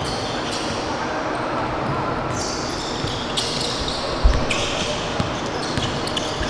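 Basketball game sounds in a large gym: a ball bouncing and sneakers squeaking on a hardwood court over a steady hall murmur. A heavy thump about four seconds in.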